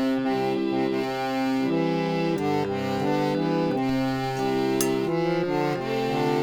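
Electric chord organ playing a slow series of held reedy chords that change every second or so. A brief faint click sounds about three-quarters through.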